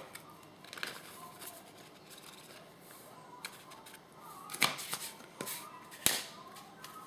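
Spice containers being handled and shaken over a plastic zip-top bag of seasoned flour: light rustling and clicks, with a few sharp knocks, the loudest about two thirds of the way through.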